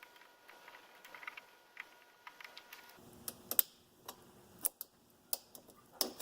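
Scattered light metallic clicks and taps of tools working at a snap ring on the fifth-gear shaft of a manual transaxle, with the sharpest clicks in the second half.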